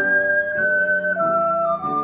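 Two ocarinas playing a slow duet in held notes: the upper part steps down note by note while the lower part steps up beneath it.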